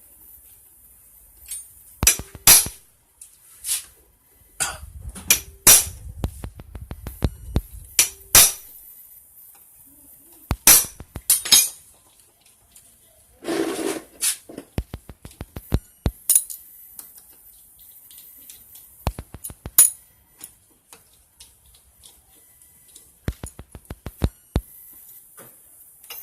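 Metal tools and motorcycle engine parts clicking, clinking and knocking against each other, as separate irregular strikes, some with a brief metallic ring, over a steady faint hiss.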